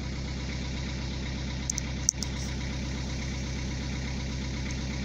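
Narrowboat's engine running steadily at low cruising speed, an even low drone. A single sharp knock about two seconds in, with a few faint high clicks around it.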